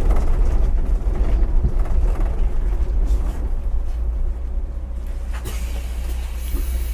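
Old Solaris city bus on the move, heard from the cabin: a steady low engine and road rumble that eases slightly about halfway through.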